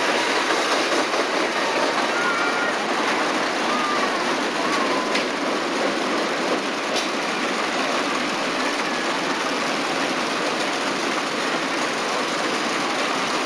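Caterpillar-themed kiddie roller coaster train running along its track, a steady, even noise of the wheels on the rails.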